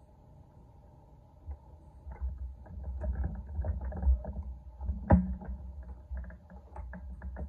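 Handling noise of a pulley-loaded wrist and finger training handle being worked: irregular low thuds, rubbing and small clicks, with one sharp knock about five seconds in. A faint steady hum runs underneath.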